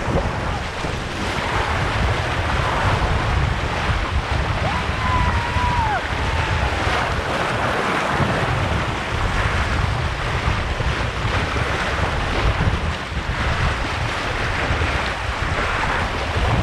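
Sea water splashing and churning as a horse wades through shallow surf, with a steady low rumble of wind on the microphone.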